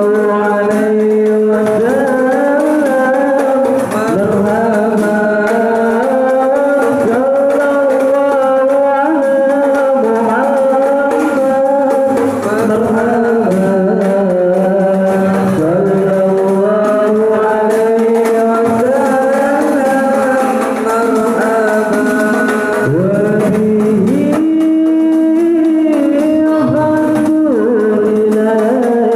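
Male voices singing an Arabic sholawat chant in praise of the Prophet through a microphone and PA, with long held, melismatic notes. Hand-struck frame drums play lightly underneath.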